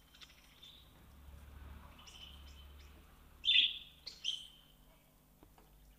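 A few short, high bird chirps, the loudest about three and a half seconds in, over a faint low hum.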